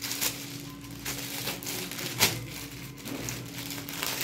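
Clear plastic polybags around T-shirts crinkling as they are handled and pressed flat, with a sharp crackle about two seconds in.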